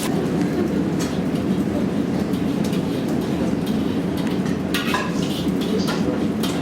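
Commercial kitchen noise during cooking: a steady low roar, with a few sharp clinks of metal cookware about a second in and again near the end.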